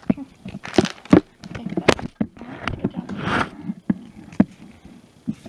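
Scattered knocks, taps and a brief scrape as a cardboard Pokémon booster box is handled and set upright on a tabletop.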